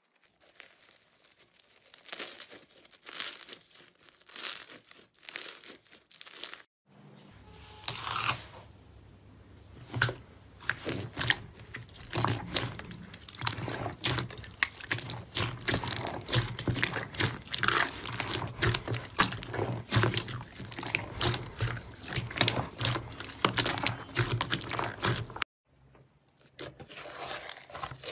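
Hands squeezing and kneading slime: dense wet crackling and popping, first from bead-filled clear slime, then from a glossy slime worked in a bowl over a steady low hum, then from clear slime with beads mixed in. The sound breaks off briefly twice where one clip gives way to the next.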